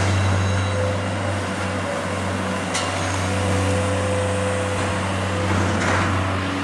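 A steady low mechanical hum under a broad noisy bed, with one sharp click near the middle.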